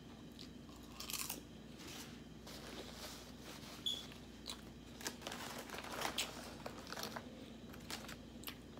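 Close-up crunching and chewing of Lay's Classic potato chips: a string of sharp, irregular crackles, thickest about a second in and again in the second half. Some crinkling of a paper sandwich wrapper being handled is mixed in.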